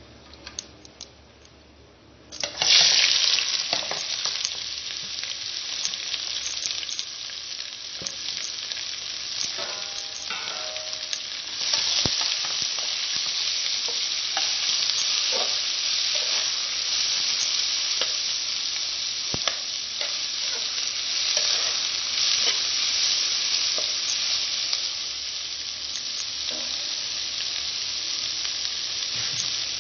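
Sliced onions dropped into hot oil with whole spices in an aluminium pot about two seconds in, setting off a sudden loud sizzle that keeps going steadily as they fry. A metal spoon stirs them, with occasional knocks and scrapes against the pot.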